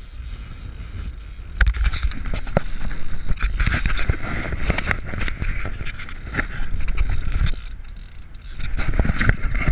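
Big-game fishing reel being cranked hard while fighting a marlin, a dense clicking whir in bouts over a steady low rumble. The reeling starts about a second and a half in, stops for about a second near the end, then picks up again.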